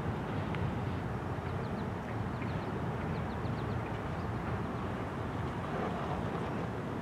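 Double-stack intermodal container train rolling past: the steady noise of its wheels on the rails, with no change in pace.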